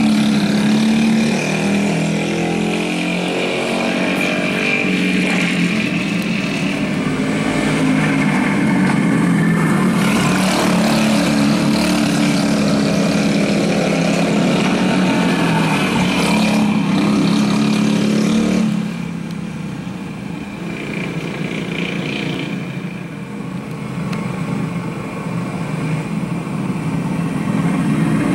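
Several dirt go-kart engines running at racing speed, their pitch rising and falling as the karts lap the track. About two-thirds of the way through the sound drops off, then builds again near the end.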